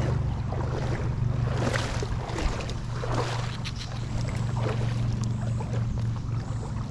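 Creek water splashing and running in irregular bursts over a steady low hum.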